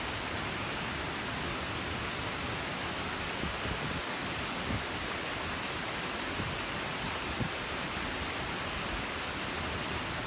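Steady rushing of falling water, an even hiss and rumble without change, with a few faint low thumps.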